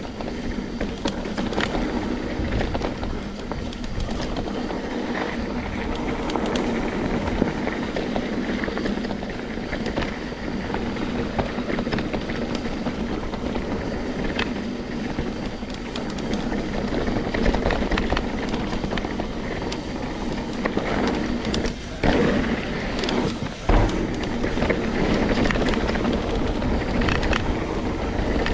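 Trek Slash 9.8 full-suspension mountain bike riding a dirt singletrack trail: steady rolling noise with frequent knocks and rattles from bumps, and a couple of harder thumps late on.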